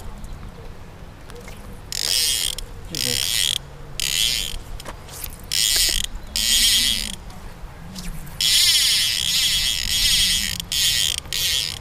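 Fly reel's click-and-pawl ratchet buzzing in a series of short bursts as line is pulled off the reel in pulls, with one longer pull of about two seconds near the end.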